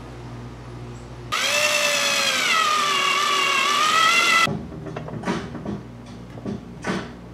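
Cordless 20V drill running for about three seconds as it bores through a kydex sheet into a wood block; its whine sags in pitch midway, recovers, then cuts off suddenly. Afterwards a series of light clicks and taps.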